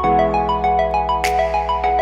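Background music: a bright melody of plucked and mallet-like notes over sustained chords, with a light cymbal-like accent about a second in.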